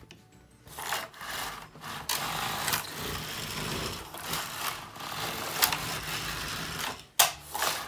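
Singer 2200 Memomatic knitting machine carriage being pushed along the needle bed, knitting test rows with a steady mechanical rush of needles and yarn. The machine is knitting properly after its needle brake spring and tension unit were repaired. A sharp clack comes a little before the end.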